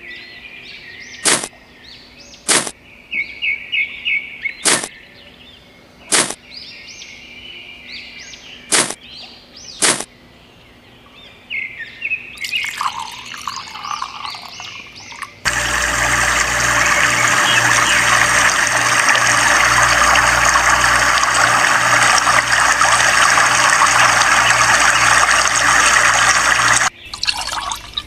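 Birdsong chirping, punctuated by six sharp clicks over the first ten seconds. About halfway through, a loud steady rush of water pouring from a small pump spout into a miniature pool begins, over a low pulsing hum. It cuts off abruptly near the end.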